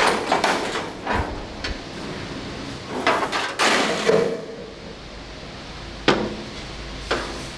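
Steel parts knocking and clanking as they are dragged out of a wire-mesh cage: a run of knocks at the start, a longer scrape of metal on metal about three to four seconds in, and two sharp clanks near the end.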